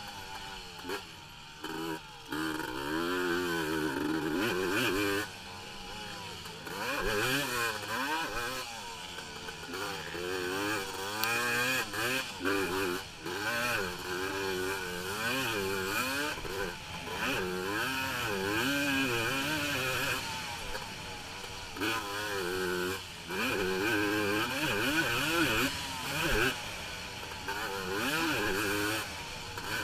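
Racing ATV engine revving hard and dropping back again and again as the rider works the throttle through the track. Brief cuts come every few seconds where the throttle is chopped, heard from a camera mounted on the quad.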